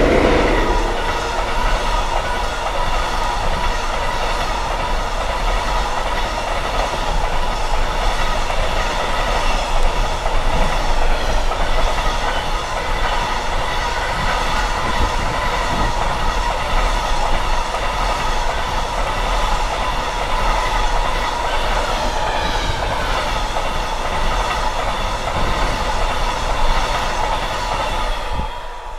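Container freight train rolling past at close range behind an electric locomotive, its wagon wheels clattering over the rails with a steady high ringing whine over the noise.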